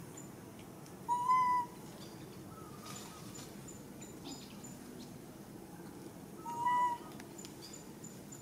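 Baby macaque giving two short, clear coo calls, one about a second in and another about six and a half seconds in, each lasting about half a second. A faint, rapid, high ticking runs in the background near the end.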